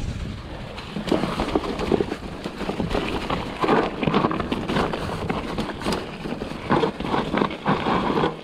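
Enduro mountain bike ridden fast down a snowy, muddy forest trail: its tyres roll over snow and dirt, and the bike knocks and rattles over bumps.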